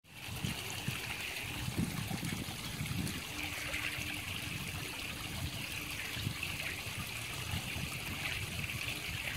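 Pond water trickling steadily, with a low, uneven rumble underneath.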